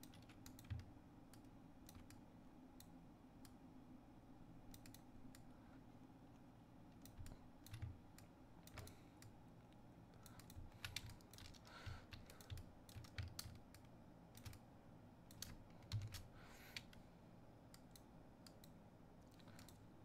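Faint, irregular clicks and taps of a computer keyboard and mouse, in scattered clusters, over a low steady hum.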